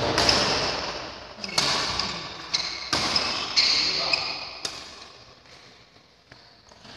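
Badminton rackets hitting a shuttlecock in a rally: about six sharp smacks in the first five seconds, each ringing on in the hall's echo, then the play goes quiet.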